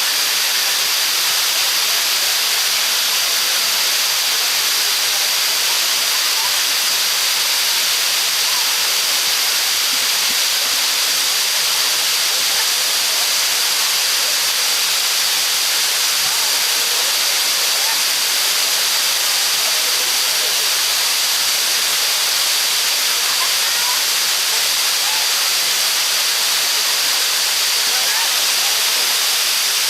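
River water pouring over a small dam: a loud, steady rushing hiss of falling water that does not change.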